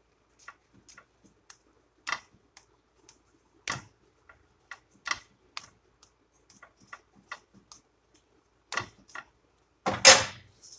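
Slotted metal spatula tapping and clicking against a non-stick pan and the quesadilla on it, in irregular light clicks with a few louder knocks. The loudest clatter comes near the end.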